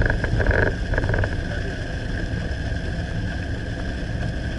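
Steady road and engine noise heard inside a moving car's cabin, a constant low rumble with a faint steady whine above it. A few short mid-pitched sounds stand out in the first second or so.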